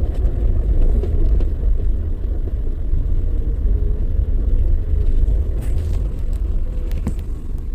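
Car driving slowly, heard from inside the cabin: a steady low engine and road rumble as it slows toward a stop. A few faint clicks come in the latter half.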